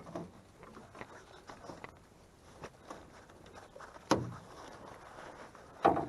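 Small clicks and handling knocks in a john boat, with two loud thumps, one about four seconds in and one near the end.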